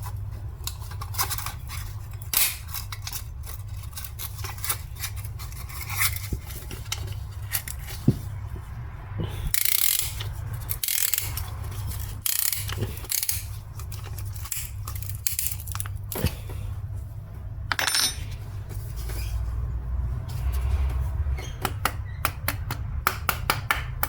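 Metal engine parts and hand tools clinking and scraping in irregular short clicks as a piston and connecting rod are fitted into the cylinder and the rod's bearing cap is put on, over a steady low hum.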